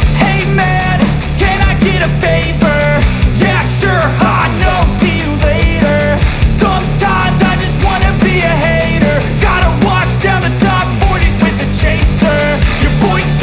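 Loud rock music with a steady beat and a heavy bass line.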